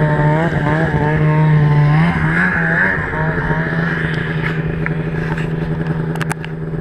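Engine running steadily near idle, its pitch wavering slightly, with a few sharp clicks about six seconds in.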